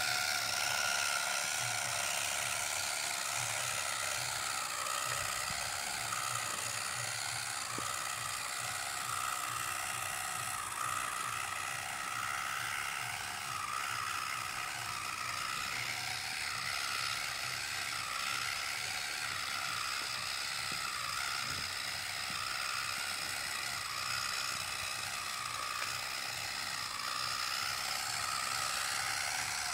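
Small electric motor and gearbox of a homemade model tractor whining steadily as it drives under load, dragging a miniature disc harrow through sand.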